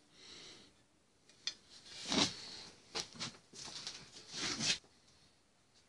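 Rustling, rubbing and scraping handling noises in a few short bursts. The loudest comes a little after two seconds and a longer one follows near the end.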